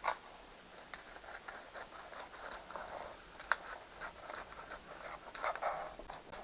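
Rustling and crinkling of a sheet of thick wood-grain wallpaper being handled, with scattered sharp clicks. The loudest click comes about three and a half seconds in.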